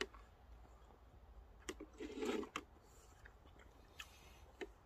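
Faint eating sounds: chewing and a few light clicks of a utensil against a bowl.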